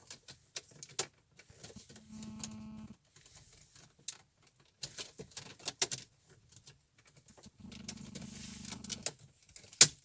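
Plastic trim frame around a Lada Priora's car radio being pried off with a spatula: scattered clicks and snaps of the plastic clips, with two stretches of low buzzing creak as the frame is levered. A sharp click comes near the end.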